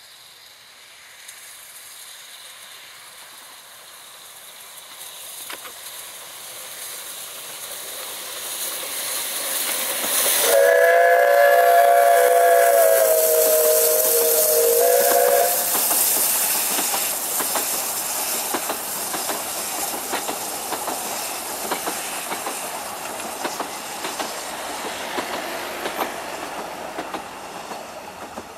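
Welsh Highland Railway NGG16 Garratt steam locomotive No. 87 approaching with its passenger train, growing louder, then sounding its whistle as a chord of several notes held for about five seconds as it passes. The coaches follow with a rhythmic clickety-clack of wheels over the rail joints that slowly fades.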